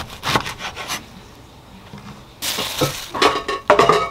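Kitchen knife cutting through the root end of a bunch of enoki mushrooms and knocking on a wooden cutting board. After a pause comes a short rustle, then a run of knocks and handling noises as the mushrooms are pulled apart.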